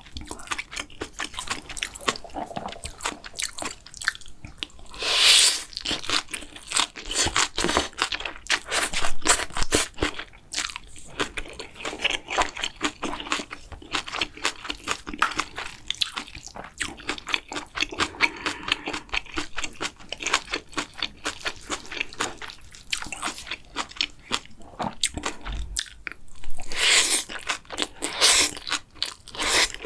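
Close-miked eating: steady chewing with crisp, rapid crunches and wet mouth clicks from a mouthful of bibimbap-style Korean food. About five seconds in and again near the end comes a louder rushing swell.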